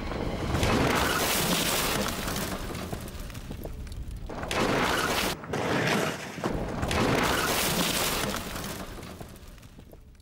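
Rover 800 saloon crashing at about 50 mph into a collapsible stainless-steel safety lamppost: loud crashing and scraping of metal with glass shattering as the post bends under and over the car. The noise comes in several loud surges, then dies away near the end.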